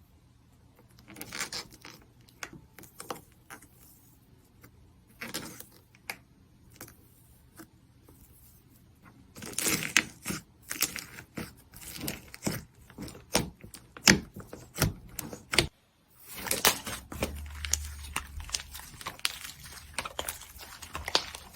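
Slime being squished and worked, giving irregular crackling clicks and pops. The sounds come in short scattered bursts at first, grow dense about halfway through, break off for a moment, and then go on as close-packed crackling.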